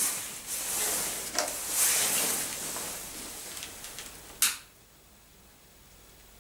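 Rustling of a jacket and handling noise as a person turns and picks up a long-nosed utility lighter, with one sharp click about four and a half seconds in.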